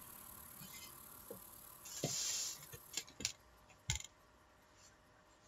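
Quiet sound effects from the episode's soundtrack: a brief soft rustle about two seconds in, then a few small clicks and knocks.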